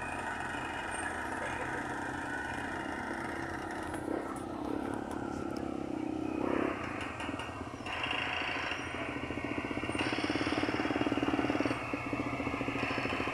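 Motor grader's diesel engine running under load, with a fast pulsing beat that grows louder about eight seconds in and drops back briefly near the end.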